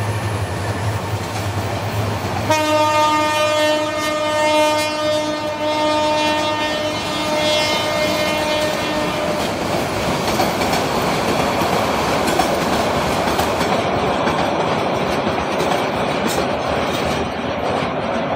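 Passenger train coaches running past, wheels clattering on the rails. From about two and a half seconds in, a train horn sounds one long steady blast that lasts about six seconds. After it, only the rolling clatter goes on.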